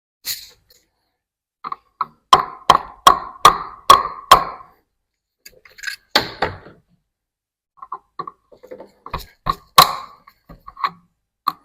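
Hammer blows in a small room: a quick run of about six even strikes a little over two seconds in, then a few scattered single knocks, one of them loud near the end.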